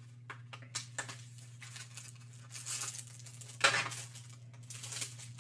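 Faint rustles and small clicks of a replacement phone battery and its packaging being handled, with a louder rustle about two-thirds of the way through, over a steady low hum.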